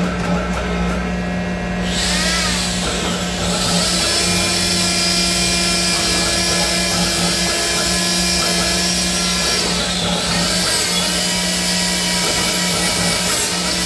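Workshop machine running: a steady motor hum, joined about two seconds in by a loud high hiss that dips briefly twice, near the start of the hiss and again about ten seconds in.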